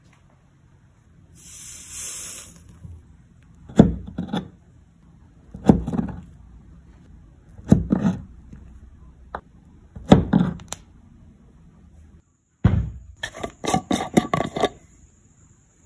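A short hiss, then a few separate dull knocks as a fork cuts down through a slice of chocolate cheesecake to its cookie crust and the surface below. Near the end comes a fast run of clicks and scraping as a metal screw lid is twisted on a glass jar.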